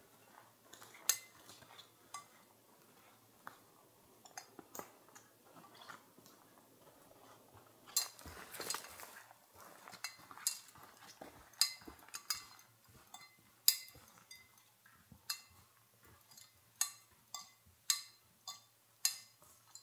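Footsteps on a dry, rocky forest trail with irregular light clinks and knocks from carried gear, and a brief scuffing about eight seconds in.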